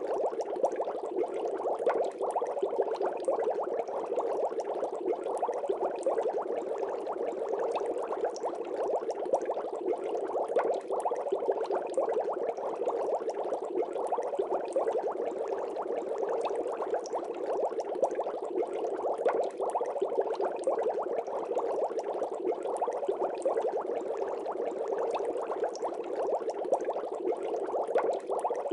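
Continuous bubbling water, a dense, even crackle of small bubbles that runs on without a break.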